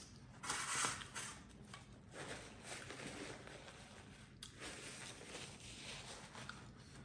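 Paper napkin rustling as it is picked up, pressed to the mouth and folded, with a louder crinkle about half a second in.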